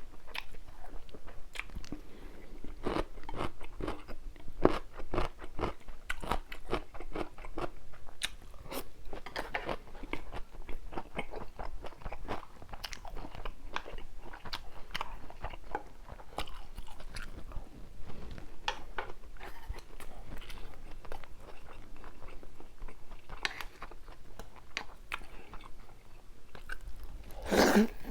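Close-miked eating: chewing and crunching food, with many irregular sharp mouth clicks and a louder burst near the end.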